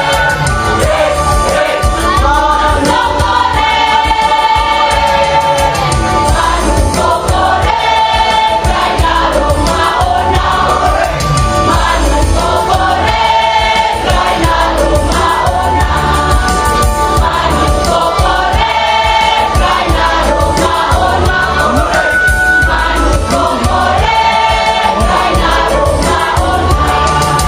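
High-school student choir singing a song, with several long held notes.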